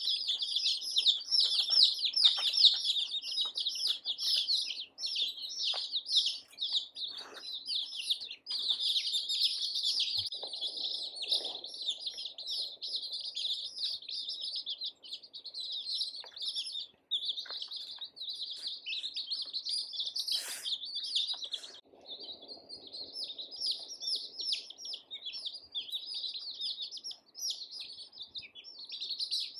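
A brood of baby chicks peeping continuously, many high chirps overlapping in a dense chorus with only brief lulls.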